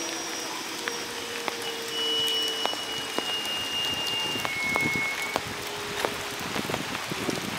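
Steady rain falling, with many single drops ticking close by. A faint thin high tone sounds for a couple of seconds midway.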